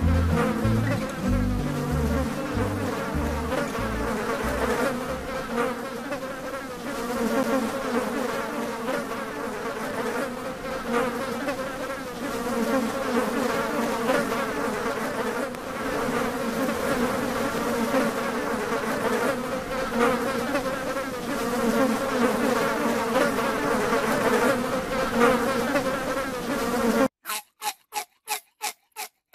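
Flying insects buzzing close around, many overlapping wavering whines at once, with a few low thumps in the first second. Near the end it cuts off abruptly and rapid pulsing music takes over.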